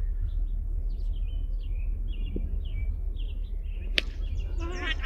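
Birds chirping with wind rumbling on the microphone, and one sharp crack about four seconds in.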